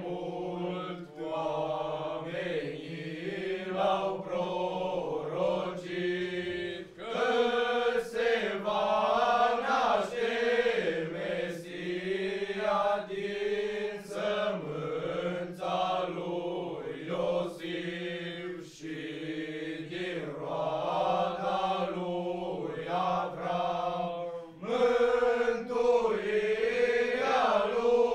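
Group of young men singing a Romanian Christmas carol (colindă) together, the melody moving over a steady held low note.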